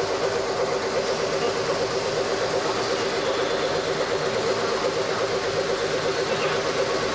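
CNC turning lathe running: a steady machine hum with a constant tone that holds level throughout.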